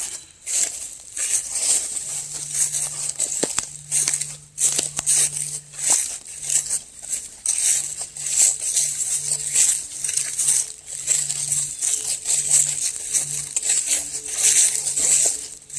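Footsteps crunching through dry leaves and brush, with twigs and undergrowth rustling and snapping in an irregular run of crackles.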